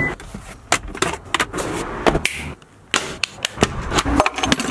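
A quick, irregular run of sharp clicks and knocks from door hardware: a car door handle being pulled and its latch releasing, and a metal door knob being turned. There is a short pause a little past the middle.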